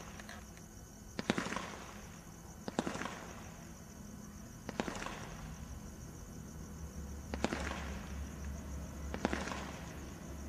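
Brothers 'Iron Man' 16-shot garden Roman candle firing five shots one after another, unevenly spaced about two seconds apart. Each is a sharp report followed by a short trailing hiss as the star climbs.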